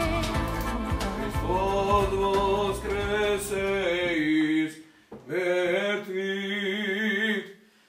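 Background song with a beat and a singing voice fades out about four and a half seconds in. A man's voice then takes over, chanting unaccompanied in an Orthodox priest's liturgical chant, and breaks off near the end.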